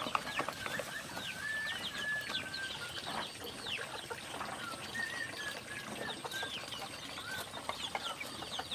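Chickens calling: many short, high chirps and peeps overlapping, with a few longer whistled notes among them.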